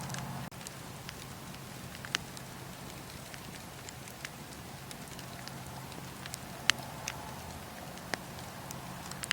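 Wood fire in a fireplace crackling: scattered sharp pops and clicks, the loudest about two seconds in and near seven seconds, over a steady low rush.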